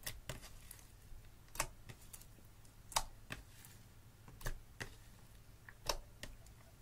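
Clear slime mixed with crushed red eyeshadow being squeezed and kneaded by hand, giving sharp, irregular clicks and pops about one or two a second, loudest about three seconds in.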